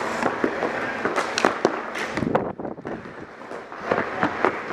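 Ball hockey sticks and ball clacking sharply during play, in quick flurries of hits with a brief lull about halfway.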